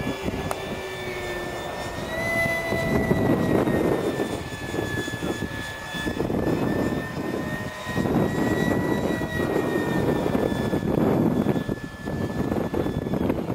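Electric ducted fan of a radio-controlled English Electric Lightning jet model whining steadily in flight, its pitch lifting about two seconds in and then wavering slightly. Wind buffets the microphone with a gusty rumble underneath.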